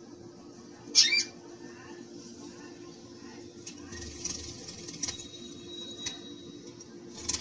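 Caged budgerigar chirping and fluttering its wings: one loud sharp chirp about a second in, then softer chirps and wing flutters, over a low steady hum.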